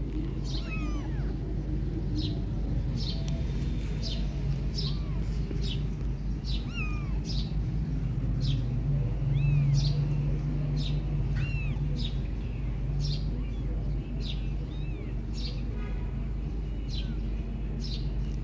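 Very young kittens mewing over and over in short, high-pitched calls, about one or two a second, over a steady low hum.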